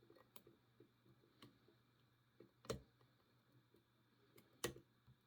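Faint, scattered clicks and ticks of a lock pick and tension wrench working the pins of an Abus myLock 40 mm aluminium-bodied five-pin padlock, with two louder clicks about halfway and near the end.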